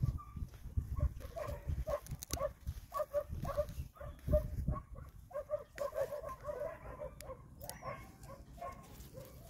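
Short animal calls repeated many times, often in quick runs, over an uneven low rumble.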